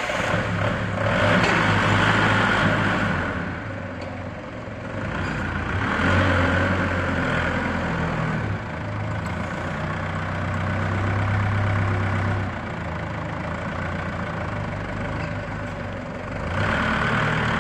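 Automatic chain link fence weaving machine running: a steady motor hum with mechanical clatter that swells and fades every several seconds.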